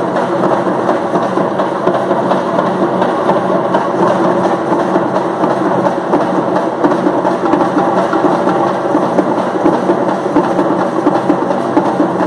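Several parai frame drums beaten fast by a troupe, making a dense, continuous roll of strokes with no break.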